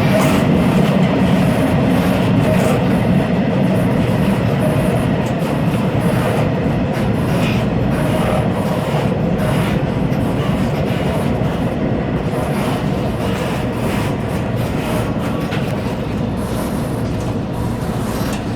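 Local electric commuter train heard at the gangway between two cars while running: a steady low rumble of wheels and car body with rattling and scattered knocks, easing slightly in loudness toward the end.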